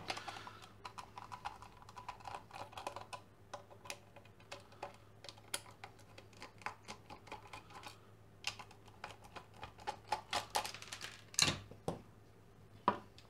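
Screwdriver backing small screws out of a plasma ball's plastic base, with rapid small clicks and ticks of the screws and the plastic being handled. A few louder knocks come near the end as the parts are set down on the table.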